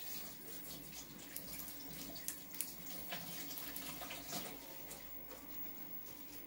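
Faint water running from a tap and splashing in irregular small spatters, over a low steady hum.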